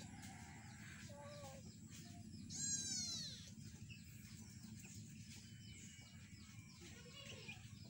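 A kitten gives one falling meow about two and a half seconds in. Faint, short chick cheeps and small mews are scattered around it.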